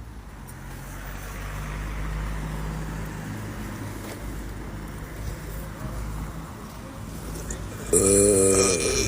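A man burps loudly once near the end, a drawn-out belch lasting about a second, over a steady low rumble.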